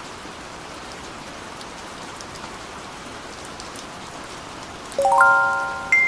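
Steady rain falling. Near the end, a quick rising run of bell-like chime notes from background music.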